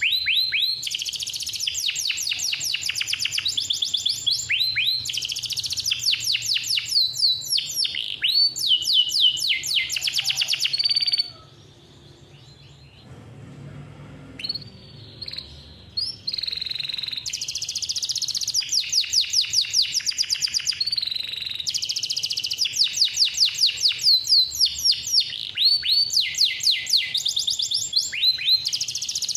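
Male domestic canary singing long rolls of rapid, repeated falling notes. About eleven seconds in the song breaks off for a few seconds, with only a few soft single notes, then the rolls start again.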